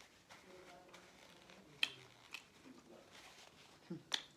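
Close-miked eating sounds: quiet wet chewing and lip smacking, with a few sharp clicks, the loudest about two seconds in and two more near the end.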